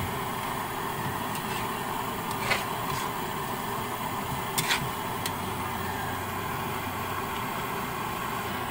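Metal spatula stirring a thick stew in a wok, clicking against the pan a few times, once about two and a half seconds in and a quick cluster just before the middle, over a steady noisy hum.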